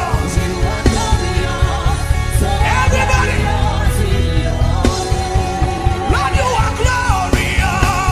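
Worship music: a voice singing with wavering, drawn-out notes over loud backing that has a heavy bass.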